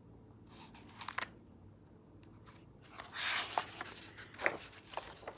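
Paper pages of a large hardcover picture book being handled and turned: a few soft clicks and rustles, then a paper swish of the page turning about three seconds in.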